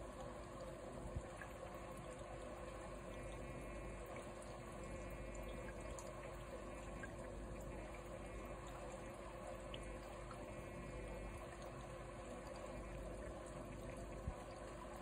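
Steady trickle of water from an aquarium filter, with a low steady hum underneath.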